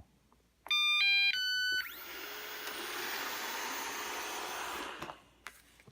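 Eufy RoboVac 11 robot vacuum playing a three-note start chime, then its suction fan and brush motors running steadily for about three seconds before shutting off.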